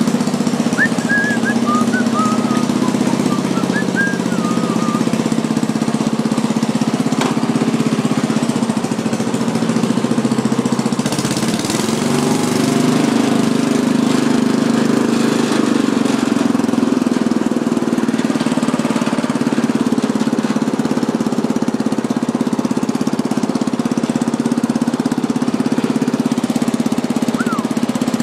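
Murray riding lawn mower's small engine running steadily as the mower is driven over gravel and grass. Around the middle its note dips and rises for a few seconds.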